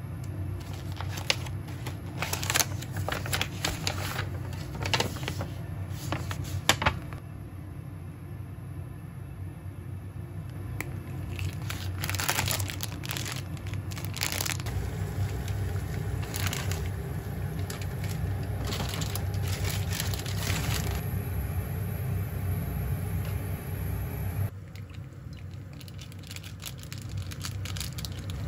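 Plastic food packaging crinkling and crackling in bursts as a packaged ramen kit is handled: a clear plastic clamshell opened, a bag of fresh noodles handled and a soup-base sachet torn open, with a quieter spell in the middle. A steady low hum runs underneath.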